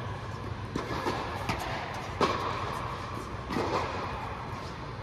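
Tennis ball struck by rackets and bouncing on the court during a rally: sharp pops about once a second, each with a short echo, over a steady low hum.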